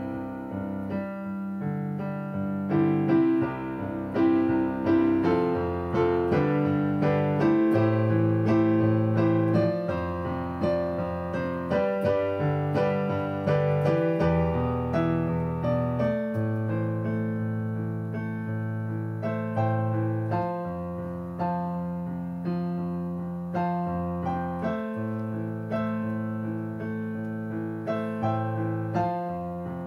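Digital piano played solo: a slow piece of held bass notes under sustained chords, the notes struck again every second or so.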